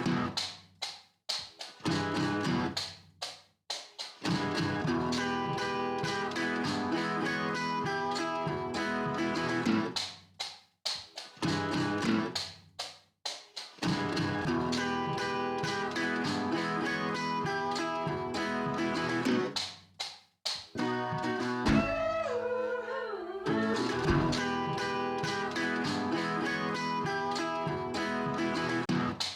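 Background music led by guitar, broken by several short pauses, with a sliding tone a little over 20 seconds in.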